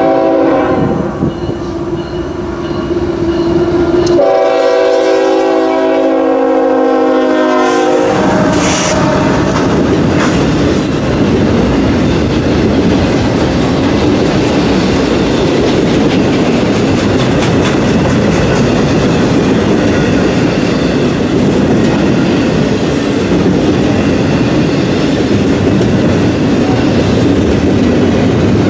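Nathan K5HL air horn on a CSX GE ES44AH locomotive: the tail of one blast, then a long blast of about four seconds. As the horn stops, the locomotive reaches the crossing and a long intermodal train of double-stack container cars rolls steadily past.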